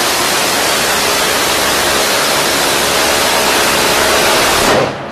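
Phalanx CIWS 20 mm six-barrelled rotary cannon firing one long continuous burst, the shots so rapid they blur into one steady noise, which cuts off sharply near the end.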